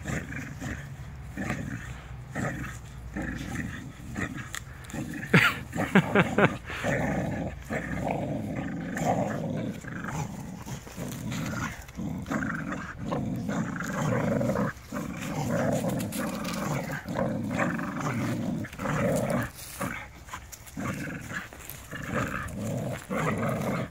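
American Bully dogs growling almost without a break as they pull and shake a rope in a tug-of-war, with a few sharper, louder noises about five to six seconds in.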